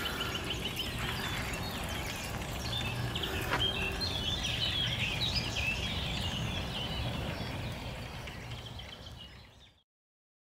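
Lakeside outdoor ambience: small birds chirping over a steady low hum, fading out near the end.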